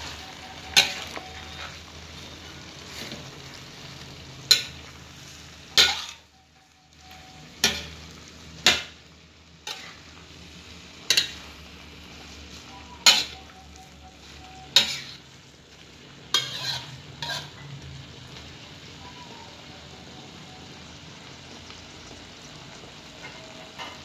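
Spatula scraping and knocking against a wok as a tuna, petai and basil stir-fry is tossed, about a dozen strokes over a steady sizzle. The strokes stop at about three-quarters of the way through, leaving the sizzling alone.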